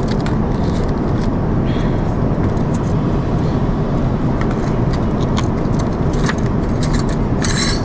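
Steady in-flight cabin noise of an Airbus A350 airliner: an even, low rush of airflow and engine noise at cruise. Scattered short clicks sound over it, the loudest cluster near the end.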